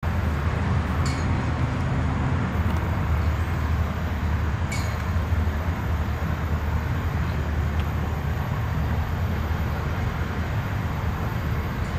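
Low, steady rumble of a nine-unit light-engine move of CSX diesel locomotives approaching on a curve, with two short high sounds about a second in and near five seconds.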